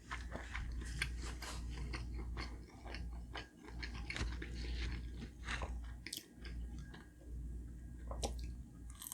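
Close-miked chewing of dim sum: a run of many short, wet mouth clicks and smacks.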